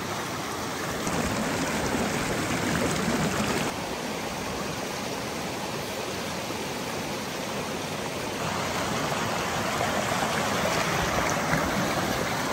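Steady rushing of water, getting a little louder about a second in, dropping about four seconds in and rising again about eight seconds in.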